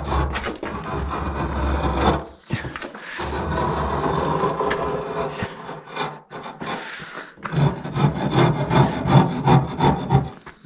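Hand wall-chasing tool scraping a groove into the top of a masonry block wall for a reinforcing rod, in rough rasping strokes. Two short pauses, then a quicker run of strokes near the end.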